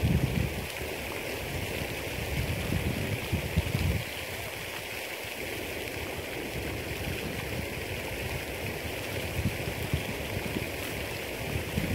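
Wind blowing across the microphone by an open pond: a steady rushing hiss with low gusts that buffet the microphone at the start, around three seconds in and again near ten seconds.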